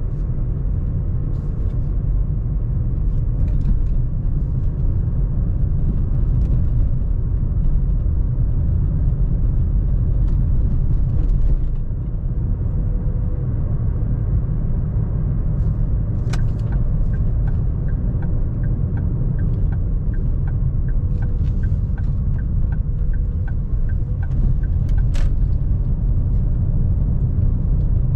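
A car being driven along a road, its tyre and engine noise a steady low rumble. Just past halfway a sharp click is followed by a regular light ticking, about two a second, which stops with another click some eight seconds later.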